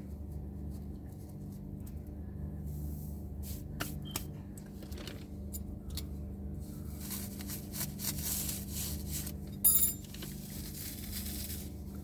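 A plastic coffee-machine water filter cartridge being cut and broken open by hand: scraping and crackling, a few sharp clicks, and one loud sharp snap near the end.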